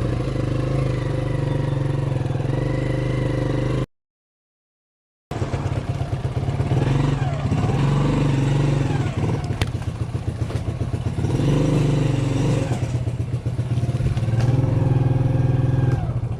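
Yamaha Grizzly 80 ATV's small four-stroke engine running steadily after being bump-started with its faulty ignition switch bypassed. It cuts out briefly about four seconds in, then runs again with its speed rising and falling a few times.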